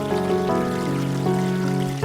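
Gentle piano playing slow, held chords over the steady babble of a mountain stream.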